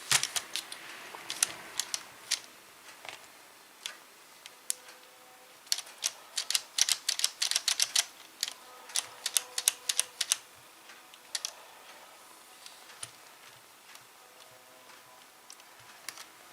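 Plastic LEGO Technic parts clicking and rattling against each other and the table as the model is handled: a run of sharp, irregular clicks, thickest in the middle.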